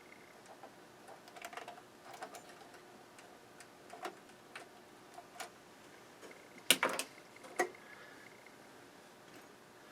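Small clicks and taps of fuses and meter probes being handled on a workbench, with a cluster of louder clicks about seven seconds in. Around then a steady high beep sounds for about two seconds, like a multimeter's continuity tester signalling an intact fuse.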